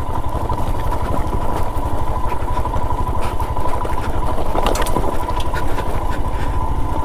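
Royal Enfield Himalayan's single-cylinder engine running steadily at low speed, its exhaust beats coming as a fast, even thudding, with a steady whine above it.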